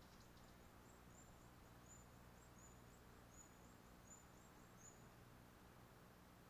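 Near silence with a faint series of short, high, thin chirps from a small bird, about a dozen quick slurred notes that stop about five seconds in, over a low steady hum.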